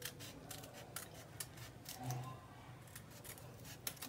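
Scissors snipping through folded butter paper (parchment), a series of short, irregular cuts.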